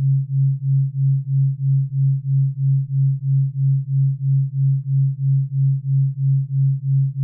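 Low, pure electronic sine tone pulsing evenly about three times a second: a brainwave-entrainment 'theta' tone.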